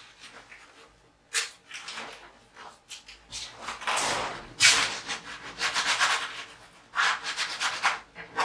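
Repeated rubbing strokes of a hand working black acrylic paint across a large stretched canvas, breaking up a black line. A single stroke comes about a second in, then a longer run of scrubbing strokes with short pauses, the loudest a little past the middle.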